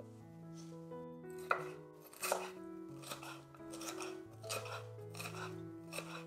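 Chef's knife slicing a red bell pepper into strips on a wooden cutting board: a crisp cut and knock on the board about twice a second, starting about a second and a half in, over background music.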